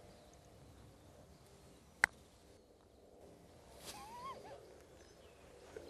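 A single sharp click of a putter striking a golf ball, about two seconds in. A short, wavering bird call follows around four seconds in, over quiet outdoor ambience.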